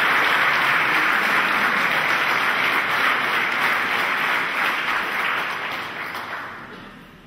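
Concert audience applauding: a dense, steady clapping that dies away over the last two seconds.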